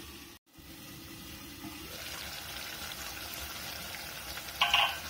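Ker sangri sabzi sizzling steadily in a steel pot on a gas stove. A short metallic clink of a utensil against the steel pot comes near the end.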